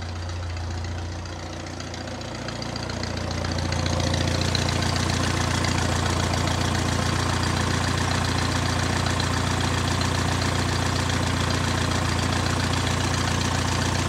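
1950 Farmall Cub's small four-cylinder flathead engine running steadily, getting louder about three seconds in and then holding even. It has just been brought back to running with fresh fuel and a cleaned-out carburetor, and it has oil pressure.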